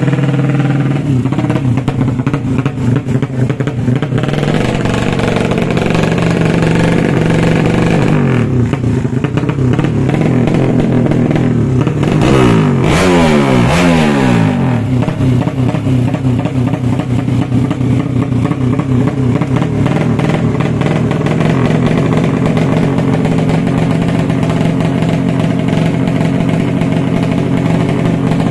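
A 200 cc underbone drag-race motorcycle engine running loud and steady at a fast idle. It is revved up and down a few times around the middle.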